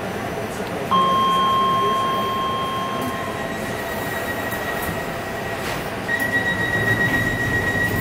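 Stationary DLR B07 stock train standing at a platform, heard from inside the carriage: a steady background rumble. About a second in, a loud, high, steady tone starts and lasts a couple of seconds. A higher steady tone then follows and gets louder near the end.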